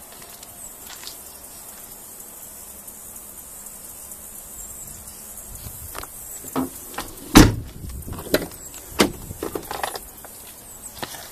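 Knocks and clicks from the cab doors of a Ford F-250 Super Duty crew cab pickup, after about six seconds of only a steady high hiss. The loudest is a single heavy thump about seven seconds in, a door being shut, followed by a few sharper clicks.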